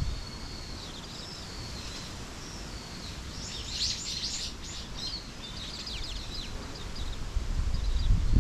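Small songbirds chirping and singing, with a dense burst of rapid high trills about three and a half seconds in, over a steady low rumble.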